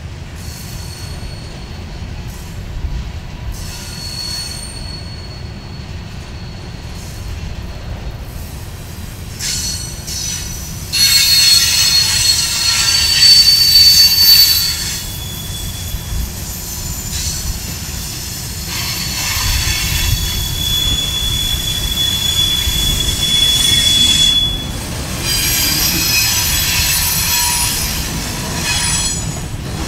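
Empty covered hopper cars of a grain freight train rolling past, with a steady low rumble of wheels on rail. High-pitched wheel squeal comes in about a third of the way through, loudest for a few seconds, then returns in waves until near the end.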